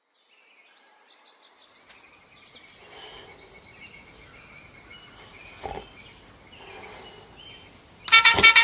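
Small birds chirping in short, repeated calls over a quiet morning background. Near the end a loud phone alarm starts, a rapid run of repeating electronic notes that wakes a sleeper.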